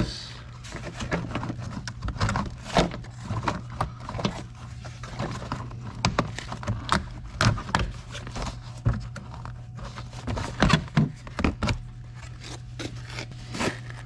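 Hard plastic door sill trim panel of a 2001 Honda Civic being lifted out and handled: a run of irregular clicks, knocks and scrapes of plastic against plastic and the car's body.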